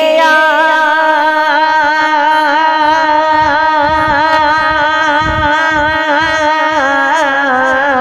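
A man singing a naat, holding one long wavering note with ornamented turns right through. Soft low thumps sit beneath it in the middle.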